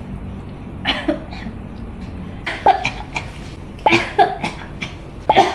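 A person coughing in repeated fits: four bouts of two or three sharp coughs each, about every second and a half.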